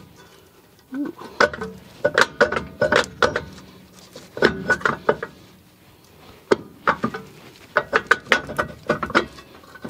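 Clusters of metal clanks and knocks as a rear brake rotor is worked loose and pulled off the hub, with a brief ring from the metal after some strikes.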